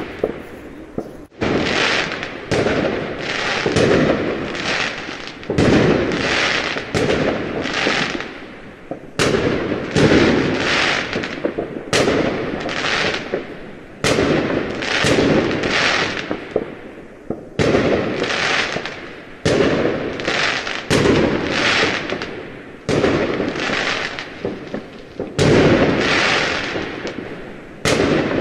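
Firecrackers bursting one after another, a sharp bang about every second, each fading away quickly.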